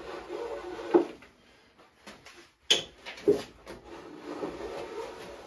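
Gloved hand strokes rubbing along the corner of a Douglas fir beam, taking the sharp edge off. The rubbing stops after about a second, and during the pause come three sharp wooden knocks, the loudest near the middle. The rubbing then starts again.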